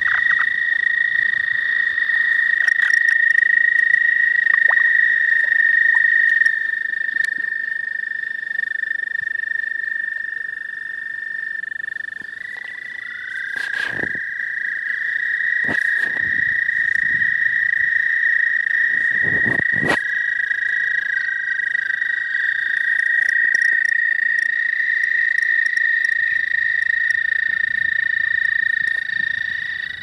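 Male toads giving their spring mating trills: long, steady, high-pitched trills that overlap, a second trill at a slightly lower pitch joining about twelve seconds in. A few brief knocks sound around the middle.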